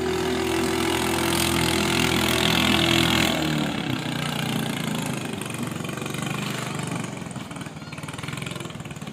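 Speedboat engine running at high revs as the boat races past, loudest about three seconds in, then dropping in pitch and fading as it moves away.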